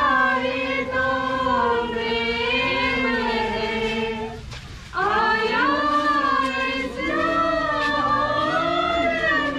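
A congregation singing a hymn together in long held phrases, with a short break between two phrases about halfway through.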